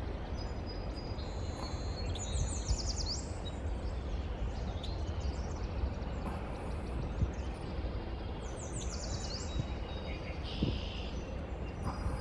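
Songbirds singing: short quick runs of repeated high notes, about two seconds in and again about nine seconds in, over a steady low rumble.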